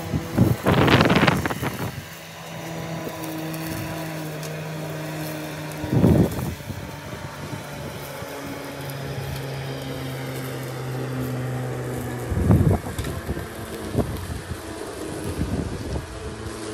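Lawn mower running with a steady hum that drops slightly in pitch for a few seconds past the middle. Three louder bursts of noise stand out: about a second in, near the middle, and about three-quarters of the way through.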